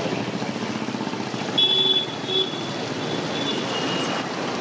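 Steady street traffic noise, with two short high beeps about one and a half and two and a half seconds in.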